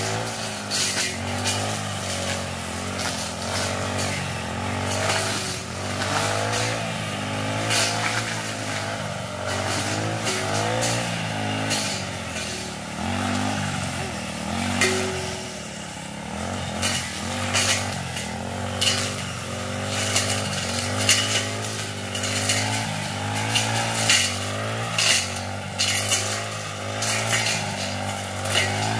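Backpack brush cutter engine running throughout, its pitch rising and falling as the throttle is worked, with repeated sharp ticks and clatter as the blade strikes brush and stems.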